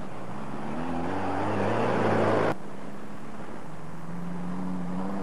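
Off-road race car engine revving hard as the car accelerates away, its pitch climbing and growing louder until the sound cuts off abruptly about two and a half seconds in. A second race car's engine then rises in pitch near the end.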